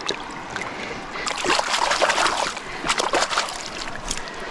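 A hand swishing a pair of goggles back and forth in shallow creek water to wash them, making repeated splashing and sloshing, busiest from about a second in until near the end.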